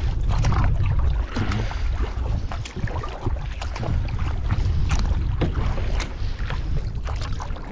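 Kayak paddle strokes: the blades splash and drip in the water at irregular intervals, over a steady low rumble of wind on the microphone.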